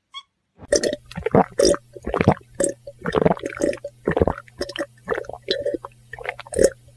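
Water glugging out of a tilted plastic bottle in quick irregular gulps and splashing onto the ground, starting about half a second in, over a steady low hum.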